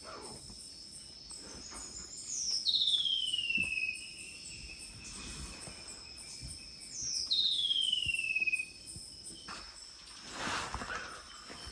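Tropical rainforest night chorus: insects keep up a steady high-pitched buzz and a pulsed chirping. Twice, about two seconds in and again about seven seconds in, a loud call rises briefly and then sweeps down in pitch over about a second and a half.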